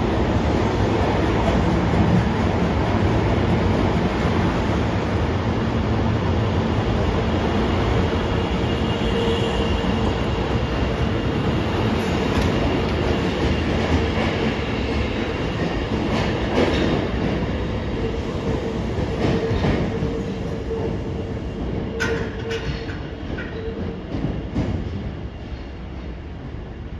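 Osaka Metro 24 series subway train running away from the platform into the tunnel. Steady wheel-on-rail rumble with a held motor hum and scattered clicks of wheels over rail joints. The hum stops a little before the end and the sound fades as the train recedes.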